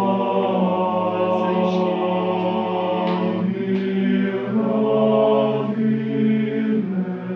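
Choir singing a cappella, holding long sustained chords that shift to new chords a few times, about three and a half, four and a half and seven seconds in.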